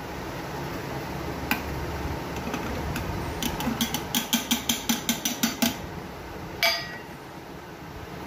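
Chunks of fresh coconut tipped from a steel bowl into a stainless-steel mixer-grinder jar. There is a quick run of light clicks and clinks for about two seconds as they drop onto the metal, then a single louder knock.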